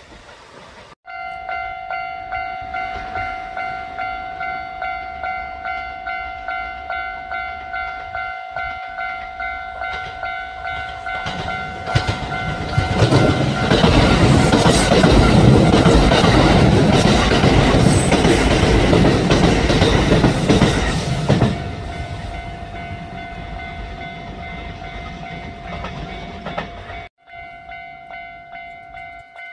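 Japanese level-crossing warning bell ringing steadily, about two strokes a second. About twelve seconds in, a Kintetsu commuter train passes close by for about nine seconds, its wheels clacking over the rail joints and drowning out the bell, which then rings on. Near the end the sound cuts to another crossing bell farther off.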